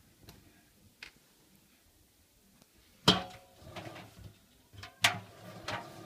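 Stainless-steel drum of a front-loading washing machine turned by hand, giving two sharp metallic clanks about three and five seconds in, each ringing briefly, with a few lighter knocks after them.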